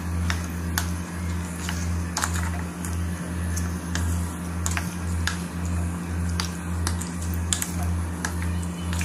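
Background music with a steady low beat, over irregular clicks and taps of a wooden spatula knocking against an aluminium pot as chicken stew is stirred.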